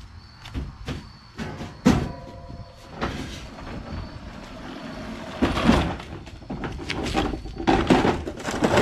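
Knocks, clunks and scraping as a walk-behind lawn mower is handled in and beside the open rear of a cargo van, with the sharpest knock about two seconds in, followed by a short ringing, and a run of clatter and scraping in the second half.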